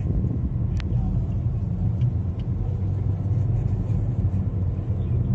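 Steady low rumble of a car in motion, heard from inside the cabin: tyre and engine noise at cruising speed on a highway.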